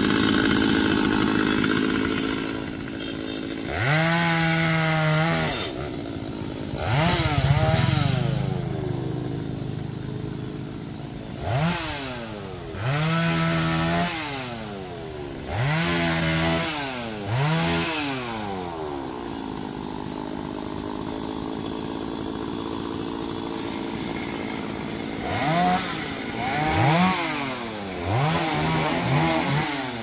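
Two-stroke chainsaw cutting in a tree, revved in short bursts that each rise in pitch and drop back to idle. A longer stretch of idling comes in the middle, and a run of quick revs comes near the end.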